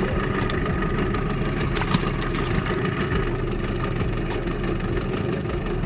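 Jon boat's outboard motor running steadily at low trolling speed.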